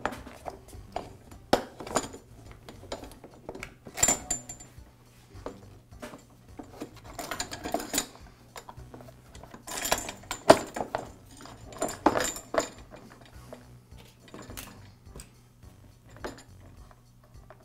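Plastic belt cover of a Ridgid drain auger being handled and fitted back onto the machine's metal frame: scattered clicks, knocks and rattles, with bursts of clatter about four, eight, ten and twelve seconds in.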